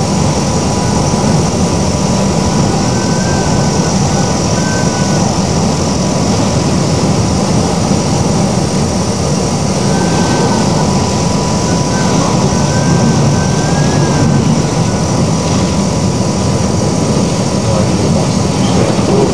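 Steady, loud roar of a violent storm, with wind and heavy seas mixed with the ship's own running noise, as picked up by a camcorder behind the spray-streaked wheelhouse window of a cable ship. A faint wavering whistle rises and falls twice over the roar.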